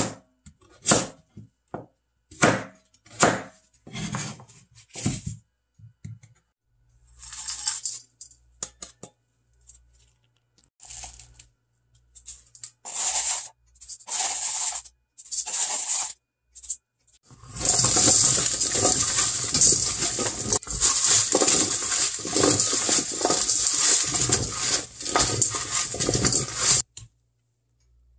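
A kitchen knife chopping Korean radish on a plastic cutting board, a stroke roughly every half second for the first five seconds. Then a few spoonfuls of coarse sea salt and chili flakes land on the radish pieces in a glass bowl, and from about halfway through the salted radish chunks are tossed and rattled around the bowl for about ten seconds, the loudest part.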